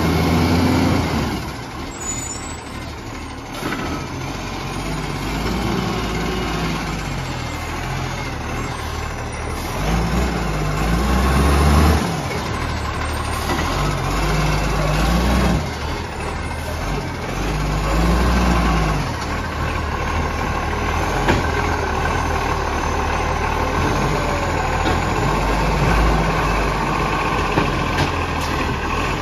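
Iveco garbage truck's diesel engine running as the truck drives and pulls up, its pitch rising and falling several times, then settling to a steady idle.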